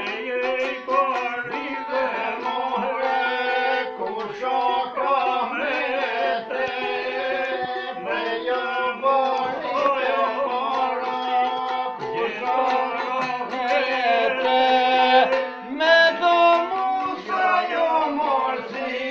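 Long-necked Albanian folk lute played in a quick melody over a steady drone note, with a man singing along.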